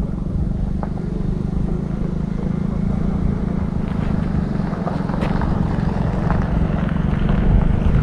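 An engine running steadily with a low drone, and a few faint ticks about halfway through.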